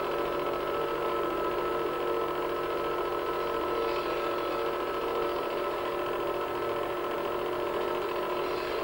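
Film projector running: a steady mechanical whir and hum with several steady tones, unchanging throughout.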